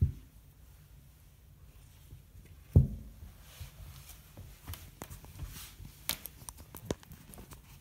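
A house cat rolling on a carpeted floor: a dull thump right at the start and a louder one nearly three seconds in as its body lands, then soft rustling and light ticks of fur and claws on the carpet and against the wall.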